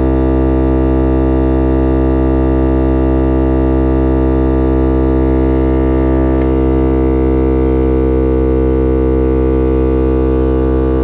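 Viair 88P portable 12-volt air compressor running steadily under load, inflating a flat truck tire: a loud, constant buzzing hum with a strong pitch.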